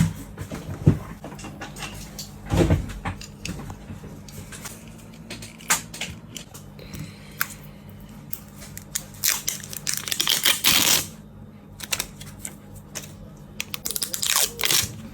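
Irregular small clicks, taps and rattles of objects being handled, with a few louder scraping stretches, over a steady low hum.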